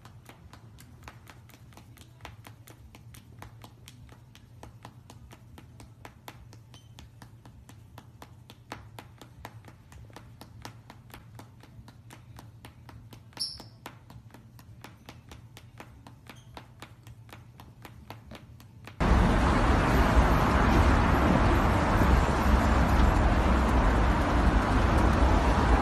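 A pet-grooming blow dryer blowing with a loud, steady rush that cuts in suddenly near the end. Before it there is only a faint low hum with many light clicks.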